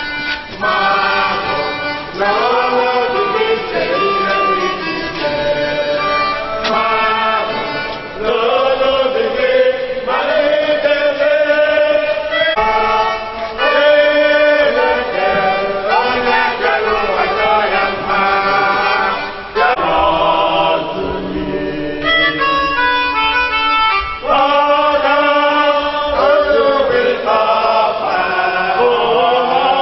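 A group of voices singing a hymn together in long held phrases, with musical accompaniment.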